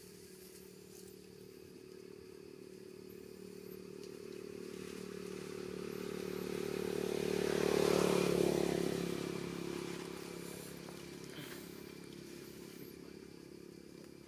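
A motorcycle engine passing by. It grows steadily louder over several seconds, is loudest about eight seconds in, then fades away.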